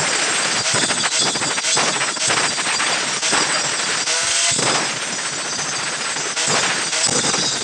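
Stick (arc) welding on 1x1 square steel tubing: the arc crackles steadily, with a few short breaks.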